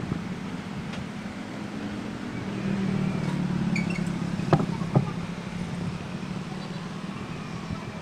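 A motor vehicle's engine running steadily as a low hum, a little louder in the middle. Two sharp knocks about half a second apart just past halfway.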